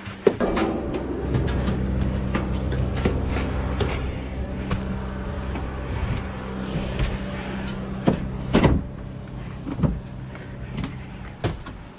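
A steady low mechanical hum, like a running engine, that sets in about a second in and fades near the end. Over it come scattered knocks and bumps of the camera being handled, the loudest about two-thirds of the way through.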